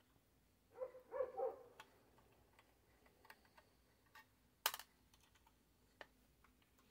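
Scattered small clicks and taps of hands handling the metal chassis, wires and small parts of a radio transceiver being taken apart. A short scraping cluster comes about a second in, and one sharp click just before the five-second mark is the loudest sound.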